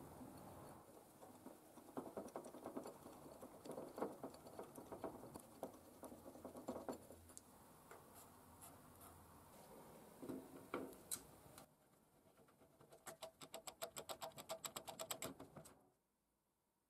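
Faint handling noises: small clicks and knocks as angle-grinder gear-head parts, a steel flange and screws are fitted together by hand on a steel table. Near the end a rapid, even run of clicks, about eight a second, which then cuts off.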